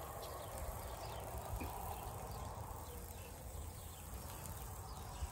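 Quiet outdoor background with faint insect chirping and no clear foreground sound.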